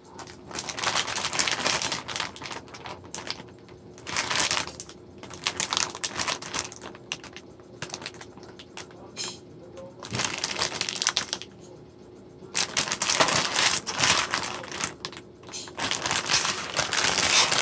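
Plastic bag of individually wrapped candies crinkling and crackling as it is handled and turned over, in several bursts with quieter pauses between them.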